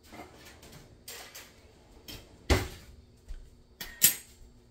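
A kitchen drawer and its cutlery being rummaged for a clean fork: a string of short knocks and clinks, with a sharp bang about halfway through and a bright metallic clatter near the end.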